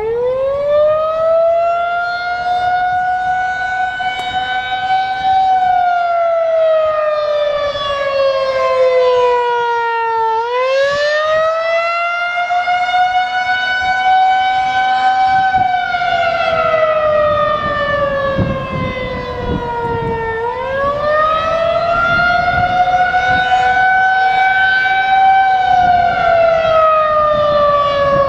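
Federal Signal 2001-SRNB outdoor warning siren winding up from low pitch, then sounding the Attack signal during a tornado drill test. It is a loud wail that rises, holds and falls in slow cycles of about ten seconds each.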